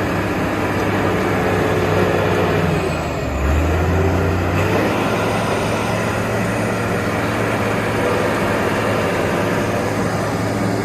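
Heavy diesel engine of a concrete mixer truck running steadily. About three seconds in, the note dips briefly and a deeper hum comes in for about a second before it settles back into the steady running.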